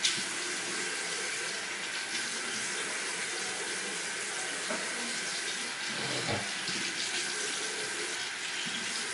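Bathroom sink tap running steadily, water pouring into the basin.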